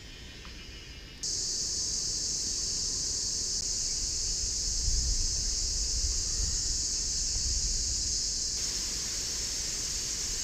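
Steady, high-pitched buzzing chorus of insects that starts abruptly about a second in and shifts to a brighter, wider sound near the end, over a low rumble.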